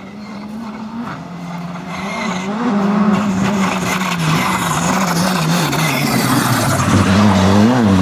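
Škoda Fabia R5 rally car's turbocharged four-cylinder engine at full race pace, growing louder as it approaches over the first few seconds, its note rising and dipping as the driver works the throttle and gears. Near the end it passes close as the car slides through the corner, with tyre noise over the engine.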